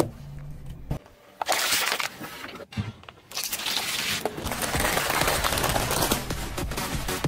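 Crunching and crackling of objects, among them a plastic soda bottle, being crushed under a car tyre, in two stretches with a short break between them.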